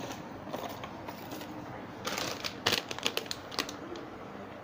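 Plastic lure packaging being handled: a quick run of sharp clicks and crinkles about two seconds in, lasting a second or two.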